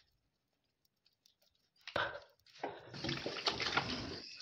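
A sudden knock about two seconds in, then tap water running into a sink and splashing as face-wash lather is rinsed off the face.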